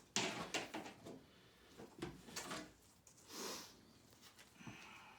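Handling noises from an old wooden dresser drawer and its plastic corner-guard edging: a sharp knock just after the start, then scattered light knocks and scrapes, with a longer rustling scrape about three and a half seconds in.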